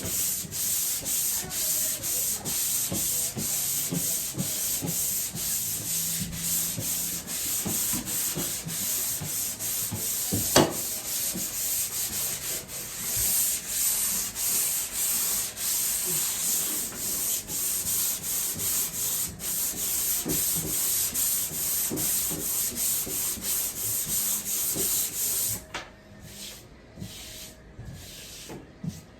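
Sandpaper of 220 grit rubbed back and forth by hand over a drywall patch in steady, repeated strokes, finish-sanding it smooth. There is a sharp tap about ten seconds in. Near the end the strokes stop, leaving only a few faint rubs.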